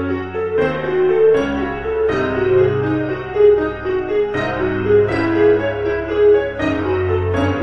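Piano music: a melody of single notes over low held bass notes that change every second or two.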